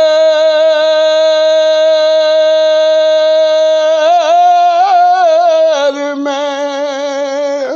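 A man singing an Urdu naat without accompaniment: one long held note, then a few quick wavering turns of the voice about four seconds in, settling onto a lower held note that breaks off near the end.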